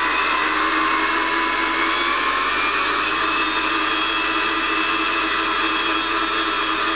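Electric ducted fan (a Dynamax fan unit driven by a Neu 1527 brushless motor) running at low throttle, a steady whir with a whine that rises a little in pitch over the first second or two and then holds. It is being kept turning at low power to cool down after a full-power thrust run.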